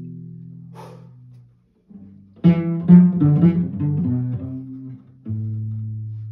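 Cello played pizzicato: plucked notes ringing and fading, a quick run of plucked notes in the middle, then a single low note plucked a little over five seconds in that rings out and dies away.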